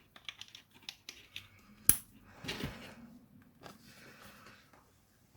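Small clicks and rattles of XLR cable connectors and a microphone being handled and plugged in, with one sharp click about two seconds in.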